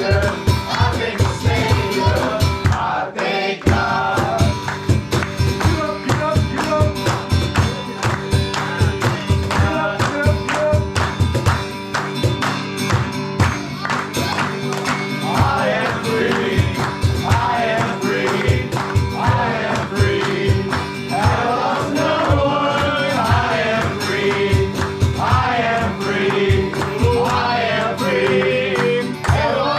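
Worship music: a band with a steady drum beat, and voices singing a melody over it. The beat drops out briefly about three seconds in.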